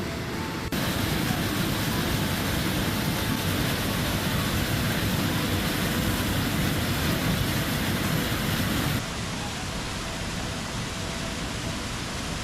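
A 40-foot man-made waterfall rushing steadily. It jumps louder about a second in and drops back sharply near the end.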